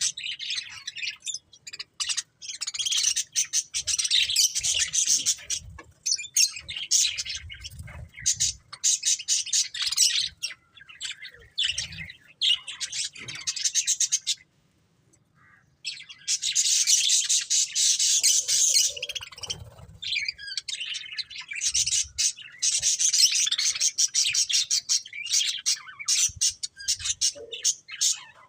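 Budgerigars chattering and chirping in rapid, busy strings of high notes with occasional squawks, pausing briefly about halfway through.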